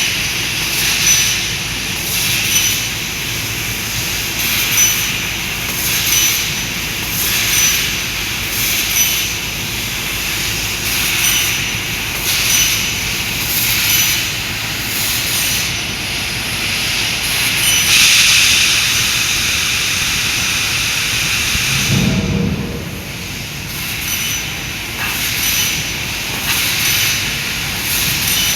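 CNC laser cutting machine at work on sheet metal, hissing in repeated bursts every second or two as the head cuts, with a brief low rumble about three-quarters of the way through.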